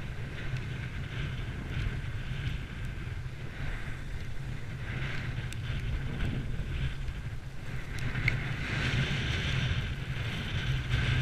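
Wind buffeting an action camera's microphone during a downhill ski run, with the hiss and scrape of skis on packed snow swelling and fading through the turns, heavier in the second half.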